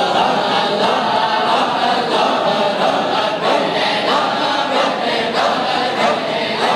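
Many men's voices chanting a devotional Sufi chant together in unison, steady and unbroken, with no instruments.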